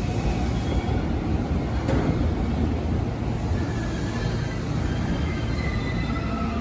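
Steady low rumble at a station platform beside a stationary JR E231 series electric commuter train, with one click about two seconds in and faint high tones in the second half.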